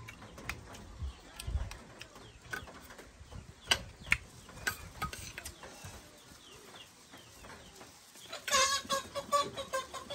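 Metal spoons clicking and scraping against steel bowls, a few sharp clinks. About eight seconds in, a hen starts clucking in a quick run of calls.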